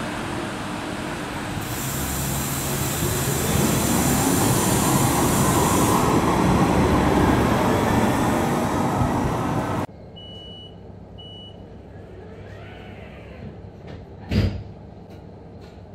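A Bombardier SN 2001 tram passing close, its motors whining and rising in pitch over loud rolling noise. Then, inside a moving tram, two short electronic beeps, followed a few seconds later by one loud thump.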